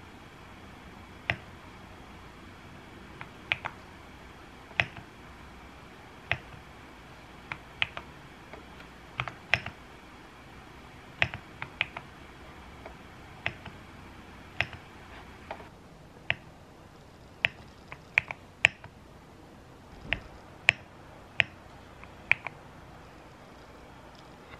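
Keys of a computer keyboard and a mouse button being pressed now and then, a sharp click roughly once a second at uneven spacing, sometimes two in quick succession, over a faint room hiss.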